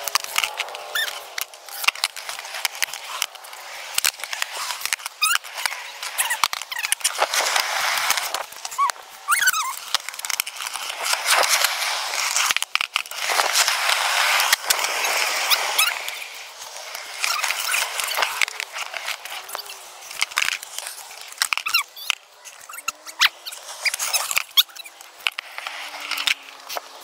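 Skateboard wheels rolling over concrete, in long stretches of rolling noise, broken by many sharp clacks of the board and trucks hitting the ground, with a few short squeaks.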